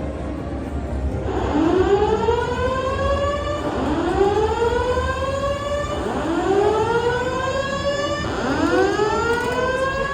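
Building emergency alarm sounding a repeated whoop tone: four rising sweeps, each about two seconds long, one after another.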